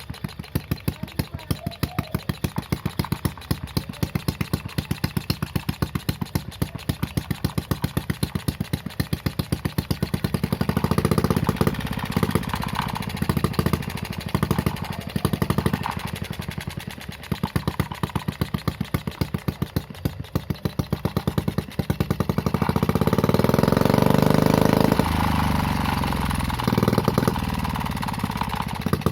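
Homemade mini four-stroke engine with a new exhaust idling with slow, distinct exhaust beats, revved up twice, once about ten seconds in and again near the twenty-second mark, then dropping back to idle.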